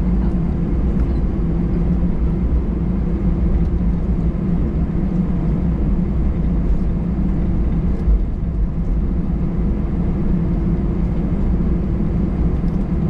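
Steady low rumble inside the cabin of an Airbus A319 on the ground after landing, from its CFM56 engines at idle, with a brief knock about eight seconds in.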